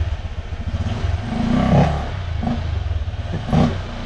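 Honda Click V3 scooter engine running and revved with sudden throttle openings, swelling louder about a second and a half in and again near the end. A universal mushroom air filter is fitted on its CVT air intake.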